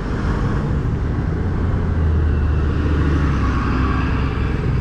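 City bus engine running as the bus passes close by, a steady low hum with road noise, slightly louder around the middle.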